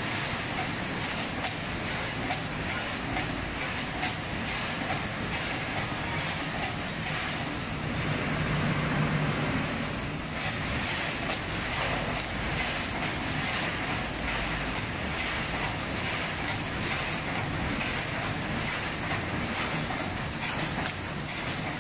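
Wire mesh welding machine running, with steady mechanical clattering as line wires feed off the coils into it.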